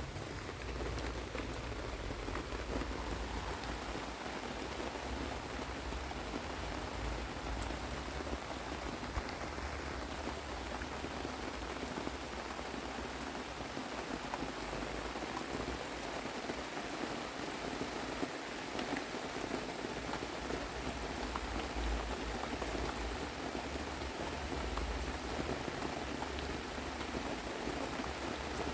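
Summer storm rain falling steadily, with the patter of many individual drops.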